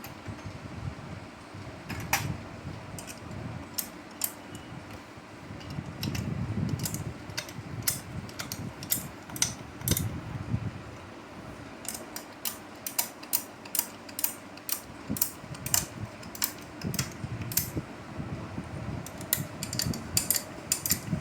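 Metal tools and engine parts of a Honda CG 125 clinking and tapping as the engine is worked on by hand, with the engine not running. The clicks come irregularly, sparse at first and quick and frequent in the second half, with a few duller knocks and handling noises.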